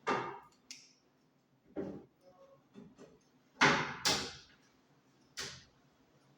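Six short, sharp knocks and bangs, each dying away within about half a second. The loudest two come close together about three and a half seconds in.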